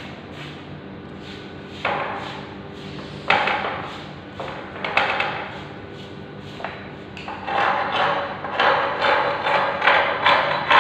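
Hard knocks on ceramic floor tiles, a few spaced strikes and then a quick run of them from about two-thirds of the way in, each ringing briefly.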